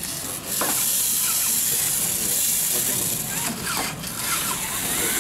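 A steady, loud hiss that starts suddenly about half a second in and holds evenly, with faint voices behind it.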